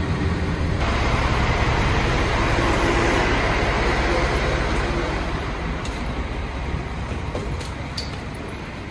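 A bus passing close by with a low engine rumble. After a cut about a second in, steady background noise of people moving through an airport gate area, fading gradually, with a few sharp clicks near the end.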